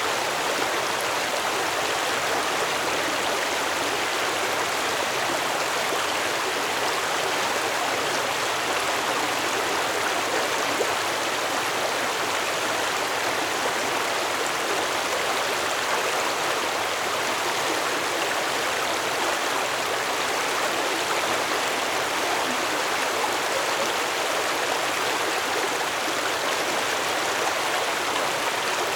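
Stream water flowing over stones: a steady, even rush and babble with no change throughout.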